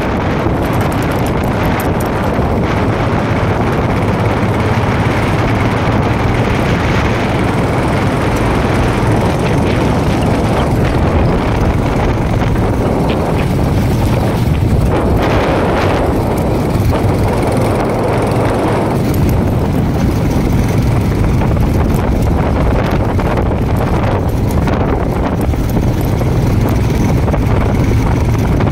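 Royal Enfield Himalayan's single-cylinder engine running steadily under way, with wind rushing over the microphone.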